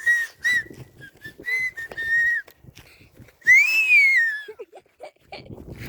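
Whistling: several short notes at nearly the same pitch, then one loud, long note that rises and falls.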